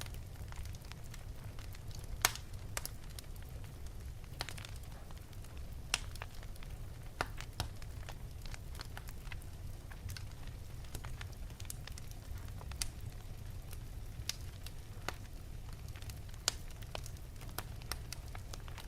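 Wood fire in an open fireplace crackling, with sharp irregular pops every second or so over a steady low rumble of the flames.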